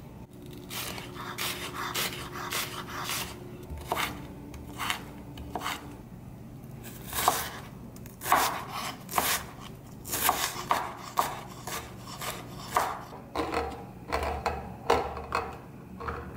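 Chef's knife chopping green onion and onion on a wooden cutting board: repeated sharp knocks of the blade against the board, in runs of quick strokes, over a faint steady hum.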